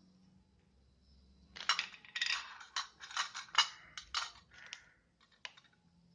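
Small hard parts of a soldering iron kit clicking and clinking together as they are handled, in a quick run of sharp clicks, then a few single clicks near the end.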